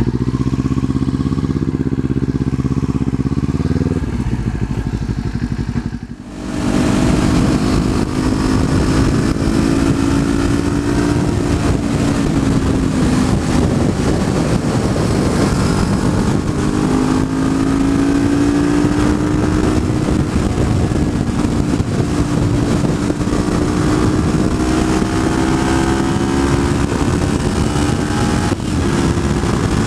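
2019 Kawasaki Z400's parallel-twin engine running through an Akrapovič exhaust, steady at low speed, then, after a brief drop about six seconds in, pulling at cruising speed with its pitch rising and easing gently. Wind rushes over the microphone during the riding.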